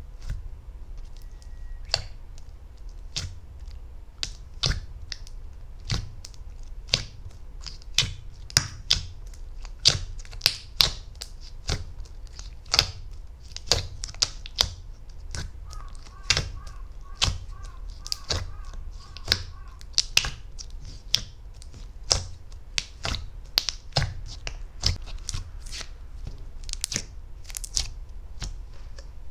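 Butter slime being pressed and stretched by hand, giving soft, sharp clicks and pops about one or two a second over a steady low hum.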